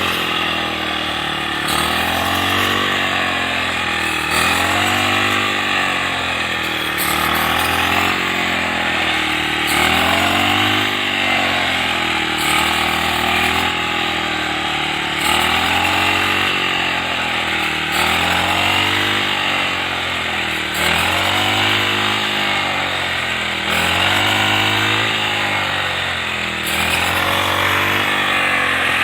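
Petrol brush cutter engine running at high speed while cutting wheat, its pitch sagging and recovering every two to three seconds as the blade takes each cut.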